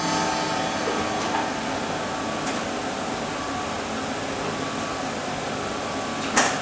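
A steady, even hiss with no organ playing. The last organ notes die away at the start, and a short sharp knock comes near the end.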